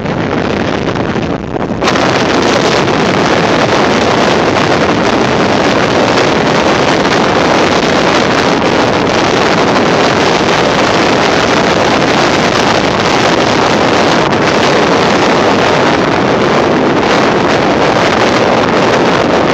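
Tropical-storm wind blasting across a phone's microphone, a loud steady rush that grows fuller about two seconds in, over heavy storm surf breaking on the beach.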